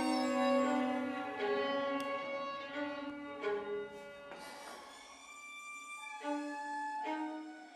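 Violin and viola da gamba bowed together, playing long sustained notes, softer around the middle.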